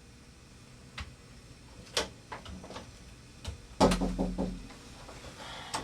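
A few sharp clicks and knocks spaced about a second apart, then a heavy thump a little before four seconds in with a short low rumble after it.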